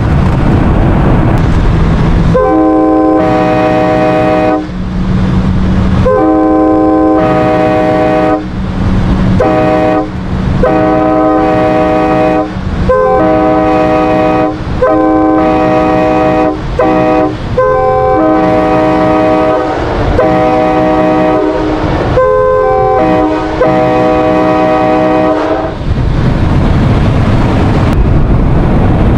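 Nathan K5LA five-chime train horn, a 1990s parts build, blown in a long string of short and longer blasts of its full chord, with brief gaps between. A rumble runs under it before the first blast and after the last.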